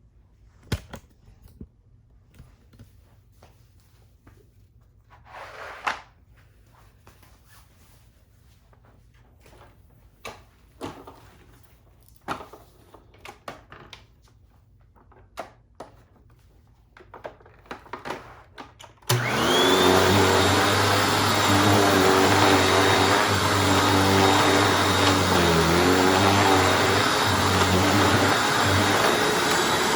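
Scattered light knocks and clicks, then about two-thirds of the way through a Hoover Anniversary upright vacuum cleaner switches on suddenly and runs loud and steady, its motor whine sweeping up as it spins up and then holding.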